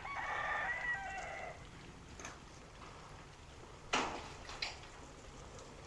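A rooster crows once, for about a second and a half. About four seconds in comes a sharp knock, then a smaller one, as pieces of ice drop.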